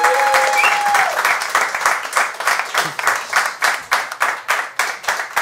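Audience applauding, with whistled cheers held over the first second. The applause then thins out into separate claps, about five a second.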